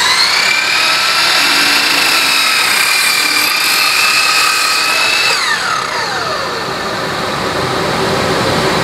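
Miter saw motor running at full speed with a steady high whine as the blade cuts through a wide board; about five seconds in the trigger is released and the whine falls as the blade spins down. A dust collector runs steadily underneath.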